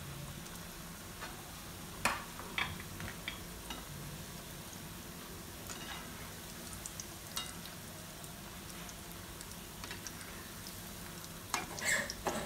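Shankarpali dough pieces deep-frying in hot oil in an aluminium kadhai, a steady sizzle. A slotted metal spatula stirs them, with a few sharp clicks and knocks against the pan, loudest in a cluster near the end.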